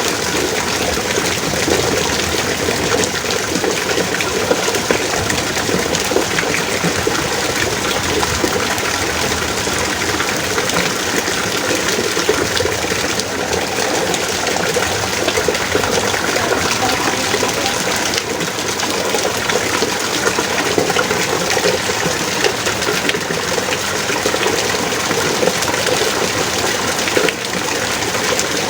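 Heavy rain pouring down steadily, a dense, even rush of water.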